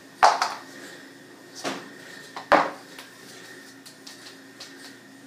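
A cat pouncing on and batting a small toy across a laminate floor: three sharp knocks and clatters in the first three seconds, the first and last the loudest, followed by a few faint taps.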